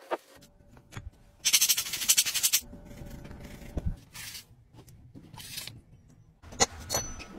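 A toothbrush scrubbing a metal watch case in soapy water: a loud run of fast scrubbing strokes lasting about a second, then a few shorter scrubs and sharp taps as the case is handled.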